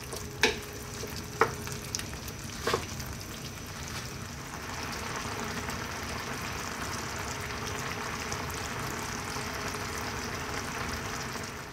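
Wooden spoon stirring pork and chillies in a pan of thick coconut-milk sauce, knocking against the pan three times, then the sauce simmering with a steady bubbling that grows a little louder about four seconds in.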